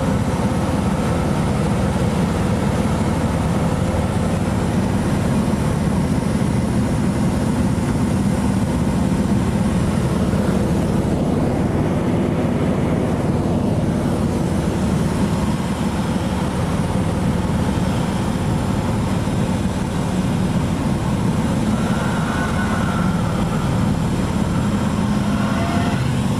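Cessna 206's six-cylinder piston engine and propeller heard from inside the cabin, running steadily with cabin and wind noise, while the plane lands and rolls out on a dirt strip.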